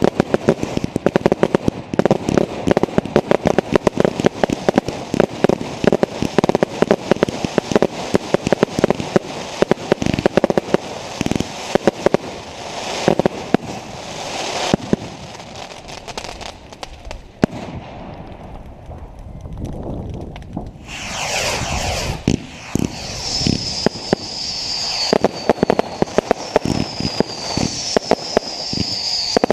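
Fireworks going off: a dense, rapid run of crackling bangs for the first half, then a quieter lull. After that comes a falling whistle, then a series of repeated high whistles about every second and a half, with more cracks.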